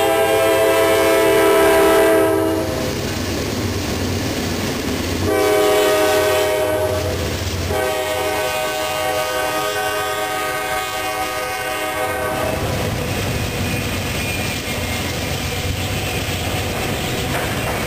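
Norfolk Southern diesel locomotives leading an autorack freight train: the air horn sounds a chord in three blasts, the last held for about four and a half seconds. After that comes the steady rolling noise of the autorack cars passing close by.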